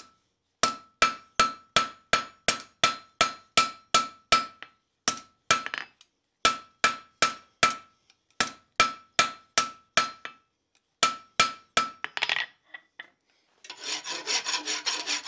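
Hand hammer striking hot steel on an anvil, about three blows a second in runs with short pauses, each with a brief high ring: the tong jaws being rounded up and their offset straightened. Near the end, rough scraping strokes of a rasp filing the hot steel.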